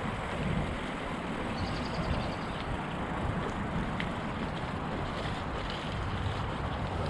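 Mountain bike tyres rolling steadily over a wet, leaf-covered path, with wind rumbling on the microphone and a few light clicks.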